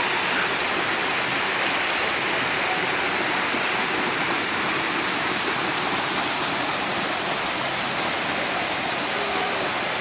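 Water from a small waterfall cascading over rocks into a pool, a steady, even rush.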